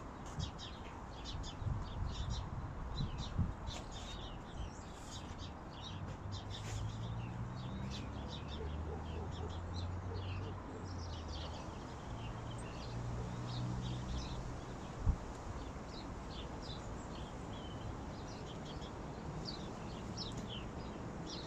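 Small birds chirping and calling, many short high notes throughout, over a steady low outdoor rumble. A low hum rises and fades in the middle, and there is a single sharp click about fifteen seconds in.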